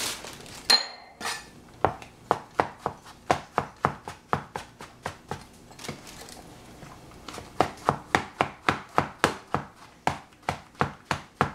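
Cleaver slicing shiitake mushrooms on a plastic cutting board: a steady run of knocks of the blade on the board, about three or four a second, with a short pause about halfway through.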